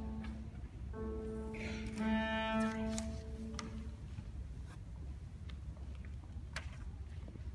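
Cello bowed in a few long held notes over the first half, then a quieter stretch with a few faint knocks.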